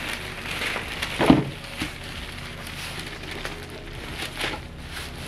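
Rustling and handling of a cloth drawstring dust bag as a handbag is pulled out of it, with one louder bump about a second in.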